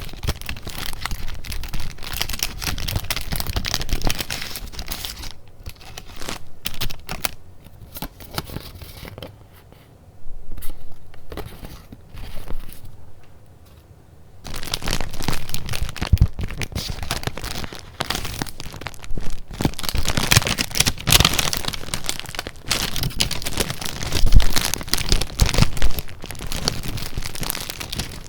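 Paper being handled: sheets rustling and crinkling in close, irregular crackles, with two quieter spells about a third of the way and halfway through.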